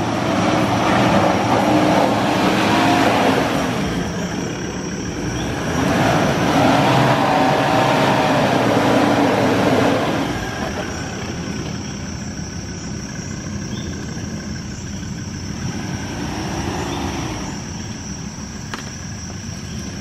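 Off-road 4x4 engine revving hard in two long surges, then running lower with one short rev near the end, as the vehicle strains on a muddy climb and gets stuck.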